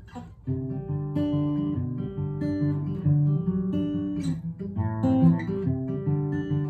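Acoustic guitar playing chords, with no singing; the playing picks up again about half a second in after a brief pause.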